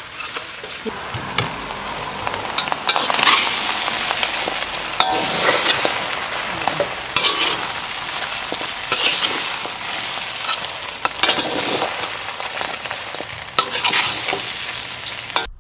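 Crab, vermicelli noodles and onions sizzling in a hot wok as they are tossed with a metal ladle and spatula, with irregular scrapes and clinks of the utensils against the wok over the steady frying hiss.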